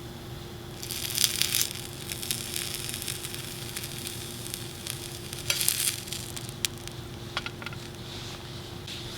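Food sizzling and crackling in a hot pan, with two louder surges of sizzle, one about a second in and one about halfway through.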